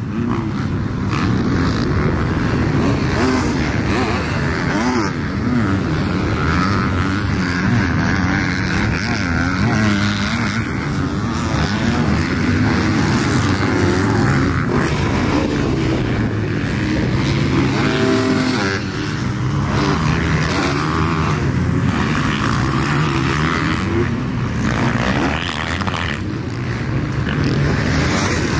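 Husqvarna motocross bike engine revving hard and dropping off again and again as it is ridden around the track and over jumps, its pitch rising and falling with the throttle.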